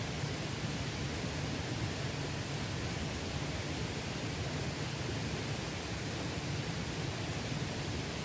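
Mountain valley stream flowing: a steady, even rush of water.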